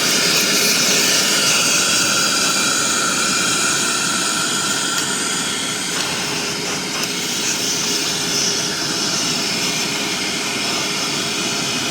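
Kobalt 24-volt cordless vacuum cleaner running steadily, a high motor whine over the hiss of rushing air.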